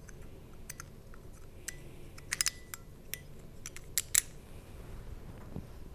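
Light metallic clicks and taps of an AK safety lever and trigger being fitted by hand into an aluminium receiver block. The clicks are scattered, with a quick cluster of several a little over two seconds in and two more about four seconds in.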